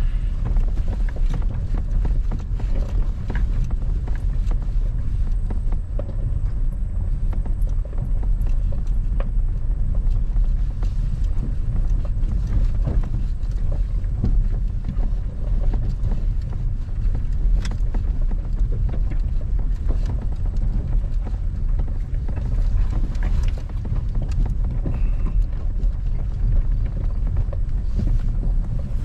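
Toyota Tundra pickup driving slowly up a rocky off-road trail: a steady low engine and road rumble with scattered knocks and clatters.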